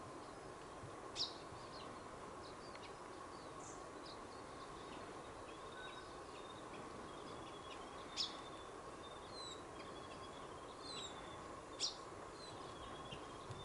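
Small birds chirping and calling in bushland over a steady background hiss, with three sharper, louder chirps: about a second in, around eight seconds, and near the end.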